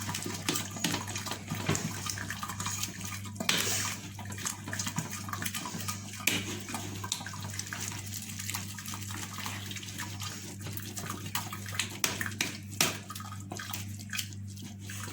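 Boiled grapes being strained and squeezed by hand, the juice splashing and trickling through, with scattered small knocks. A steady low hum runs underneath.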